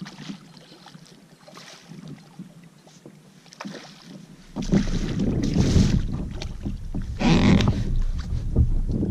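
Wind buffeting the microphone on a kayak: fairly quiet with faint knocks at first, then from about halfway a loud low rumble with two stronger gusts.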